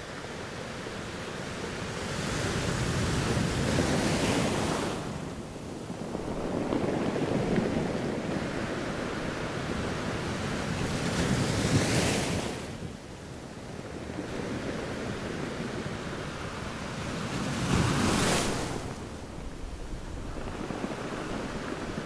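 Small sea waves breaking and washing up a sandy beach, the surf swelling and falling back. Three louder surges come about four, twelve and eighteen seconds in.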